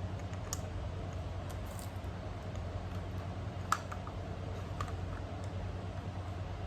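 A few scattered light clicks and taps, the sharpest a little before the four-second mark, over a steady low hum.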